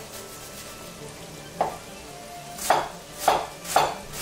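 A chef's knife chopping an onion on a wooden cutting board: one knock, then three strokes about half a second apart near the end. Under them is a faint steady sizzle of ground meat browning in a pot.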